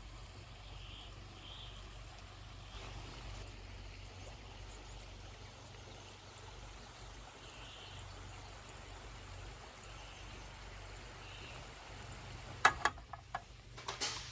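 Faint, steady hiss of ambient background noise, with a few sharp clicks near the end.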